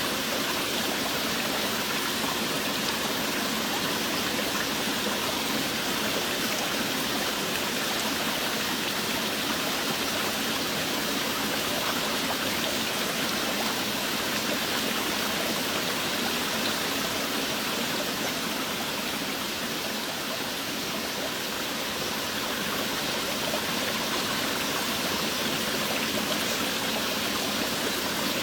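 Steady, dense rushing-water noise, like a heavy downpour or running water, with no separate drops or other events; it eases slightly about twenty seconds in.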